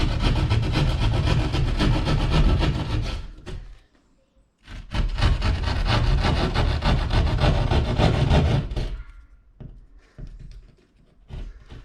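Hand drywall saw rasping back and forth through gypsum drywall in quick strokes, cutting out an opening for an electrical box. It stops briefly about four seconds in, saws again for another four seconds, then gives way to a few faint knocks.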